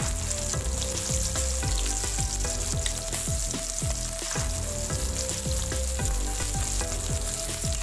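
Whole fish shallow-frying in hot oil in a pan: a steady crackling sizzle.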